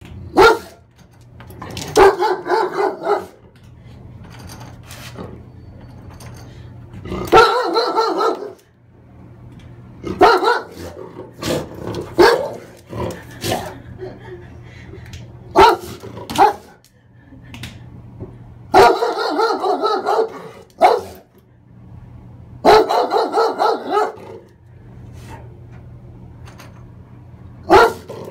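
A dog barking in repeated bouts of several quick barks every few seconds, with sharp single knocks on a door between the bouts.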